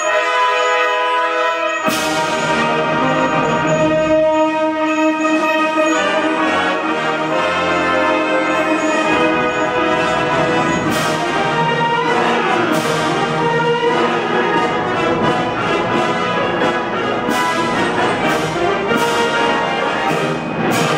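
Concert band of woodwinds and brass playing a loud passage: a held chord, then about two seconds in the full band comes in with a busy, driving texture punctuated by sharp accented hits.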